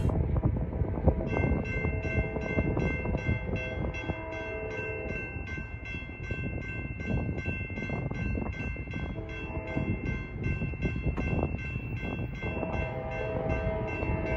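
GS Type 2 electronic crossing bells ringing in a fast, steady rhythm of about three strikes a second as the crossing signals activate. A train horn sounds in the distance at intervals under the bell.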